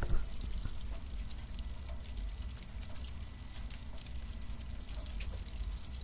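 Burning cardboard crackling: a steady low rumble of flame with many small snaps and ticks scattered through it, and one louder pop right at the start.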